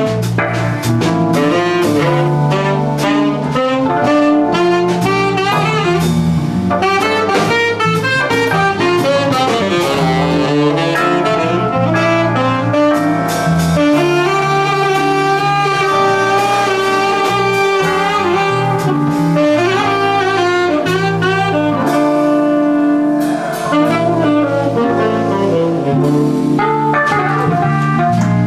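Small jazz band playing live: a saxophone solo in quick, running phrases over electric keyboard, bass guitar, guitar and drum kit.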